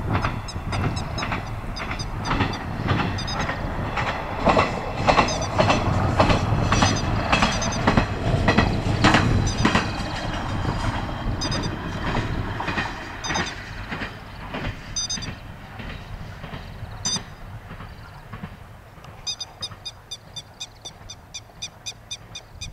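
A single-car Tenryū Hamanako Railroad diesel railcar running past, its wheels clacking over the rail joints with a low engine rumble underneath; the sound is loudest a few seconds in, then fades as the car moves away. Near the end a quick run of high, evenly repeated chirps comes in.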